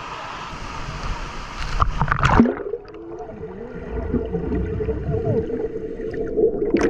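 Rushing water at a waterfall pool, with a loud splash about two seconds in. After the splash the sound turns dull and muffled, with a steady low hum.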